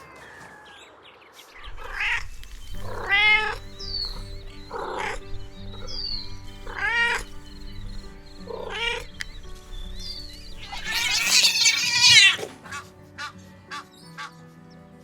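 Kittens meowing: about five short separate meows, then a louder, longer call near the end, over background music with steady held notes.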